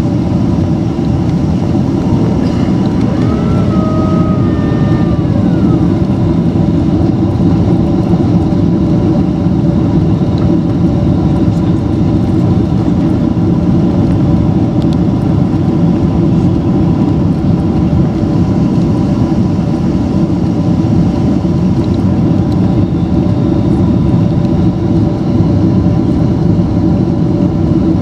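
Steady cabin noise inside a Boeing 767-336ER, the low rumble of its Rolls-Royce RB211 engines and airflow with a few steady hum tones over it. A brief whine rises, holds and falls away about three to five seconds in.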